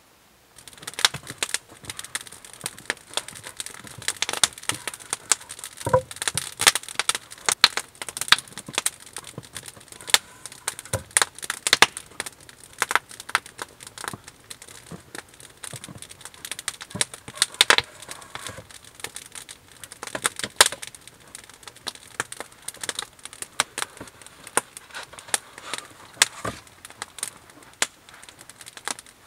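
Wood campfire crackling, a dense run of sharp, irregular pops that starts abruptly about half a second in.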